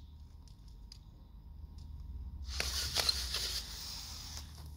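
Auger bit on a cordless drill working in hard, dry dirt. After a quieter pause it starts again about halfway through as a gritty, scraping hiss with small crunches, easing off near the end.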